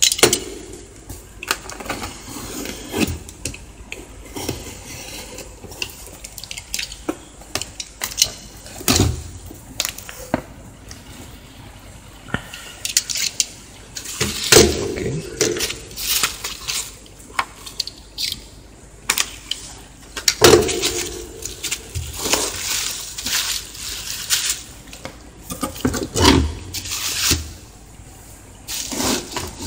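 A parcel being unpacked by hand: packing tape cut and torn, the box opened and handled, and plastic bubble wrap crinkling and rustling. The sound comes as an irregular run of sharp crackles and knocks.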